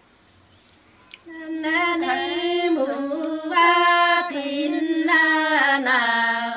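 A single voice singing a slow Nùng antiphonal folk song, starting about a second in with long held notes that bend and waver.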